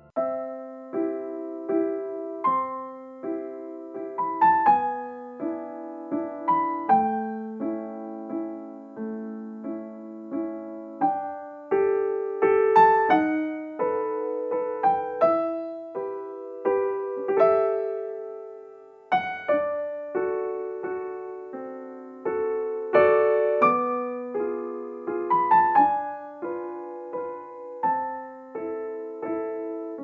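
Background piano music: a slow, gentle melody of struck notes and chords, each note fading away.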